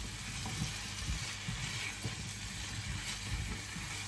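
Diced potatoes, peppers and onion sizzling in oil in a frying pan while a spatula stirs them, with a steady hiss and irregular soft knocks and scrapes of the spatula against the pan.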